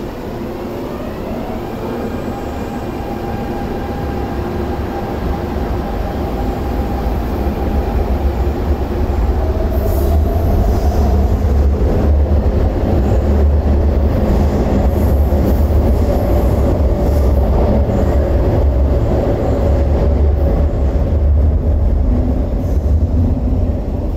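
MTR Tung Chung Line electric train pulling out of the station. Its motor whine rises in pitch as it starts to accelerate. The sound then swells into a loud, steady rumble of wheels as the cars run past, and falls away at the very end.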